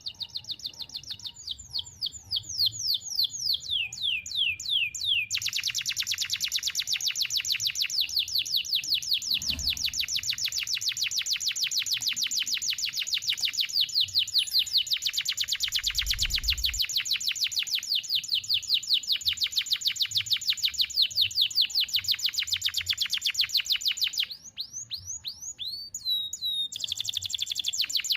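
Domestic canary singing a long, fast trill of quick down-sweeping notes, held for many seconds without a break. Near the end it pauses for a few separate glides, then starts again.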